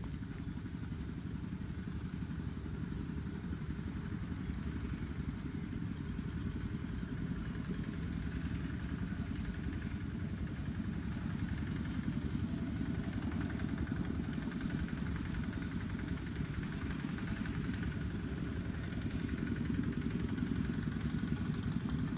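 A small engine running steadily, a low continuous drone that grows slightly louder near the end.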